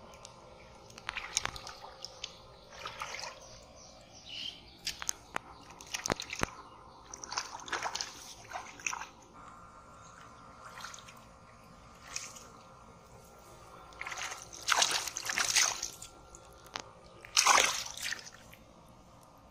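Shallow muddy water splashing and sloshing as hands grope and grab for fish under the surface. It comes in irregular bursts, loudest near the end.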